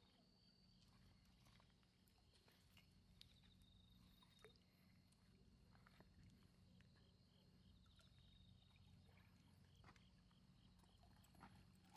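Near silence: a faint steady low hum and a thin high tone, with a few soft scattered ticks.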